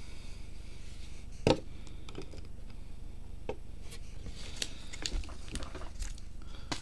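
Trading cards being handled and set down on a table: scattered light taps and clicks, with one sharper knock about a second and a half in, over a low steady room hum.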